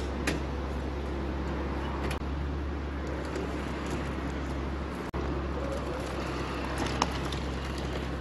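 Steady low hum of an idling vehicle engine, likely the tow Jeep Wrangler, with a few sharp metallic clicks from the trailer hitch and jack being worked.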